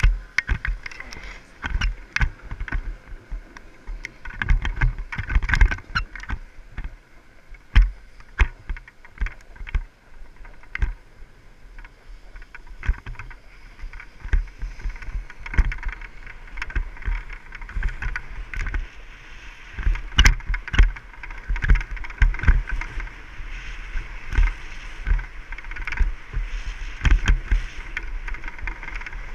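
Skis sliding and carving over packed, groomed snow, a steady scraping hiss that grows stronger in the second half. Wind buffets the microphone, with irregular thumps and knocks from the camera bouncing along.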